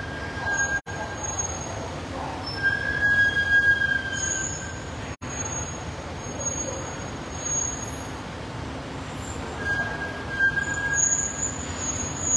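Car park ambience: a steady rumble of a vehicle pulling away, with thin high-pitched squeals coming and going several times. The sound cuts out briefly twice, about a second in and about five seconds in.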